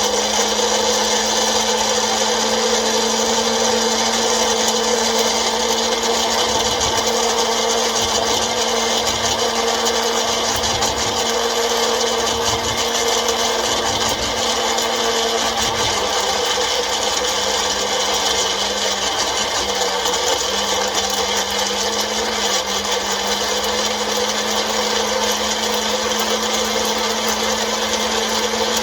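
Electric blender running steadily, blending strawberries, pomegranate seeds and lime juice into a dressing; its motor pitch dips briefly about twenty seconds in, then comes back up.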